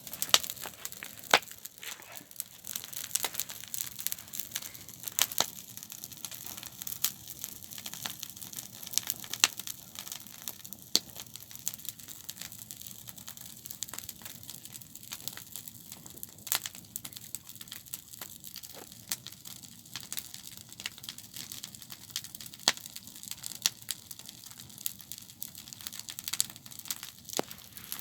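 Campfire crackling: irregular sharp pops and snaps over a steady hiss of burning.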